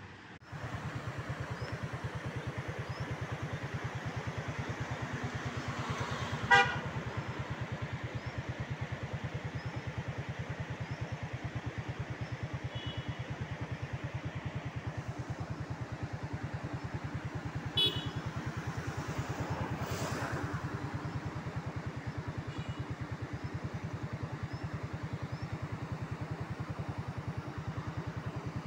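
Motorcycle engine running steadily with a fast, even pulse. Two short horn toots sound, one about a quarter of the way in and another a little past the middle.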